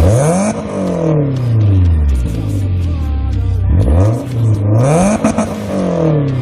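BMW Z3's M44B19 four-cylinder engine revved twice, the pitch climbing quickly each time and sliding back down slowly toward idle.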